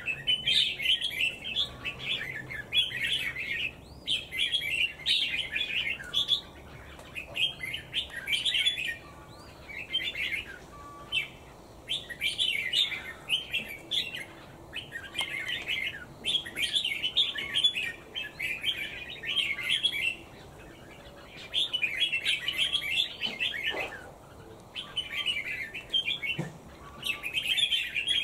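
A bird chirping and twittering in high-pitched bursts of about a second each, over and over, with short pauses between them.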